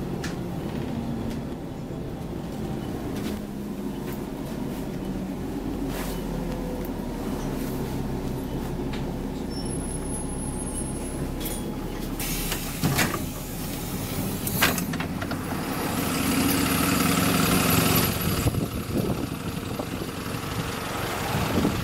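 Alexander Dennis Enviro400 double-decker bus heard from inside as it comes to a stop, its engine running steadily. About twelve seconds in there is a burst of air as the doors open, then two sharp knocks and a longer hiss of air near the end.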